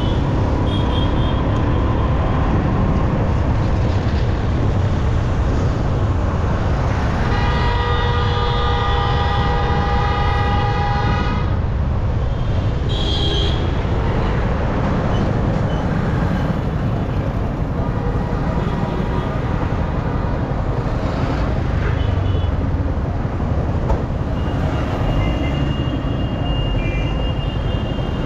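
Steady wind and engine rumble of a motorcycle riding through traffic. A vehicle horn blares for about four seconds near the middle, and shorter horn toots sound near the start, around the middle and near the end.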